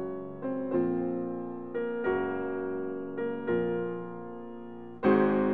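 Background piano music: slow, gentle chords or notes struck about once a second, each fading away, with a louder chord near the end.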